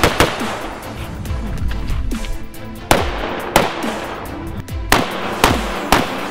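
Single shots from a CZ Bren pistol-length rifle, about six sharp reports spaced irregularly, from half a second to nearly three seconds apart, over background music.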